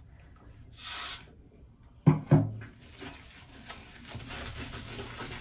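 A brief hiss about a second in, then two dull thumps a moment apart just after two seconds, followed by faint rubbing and scraping.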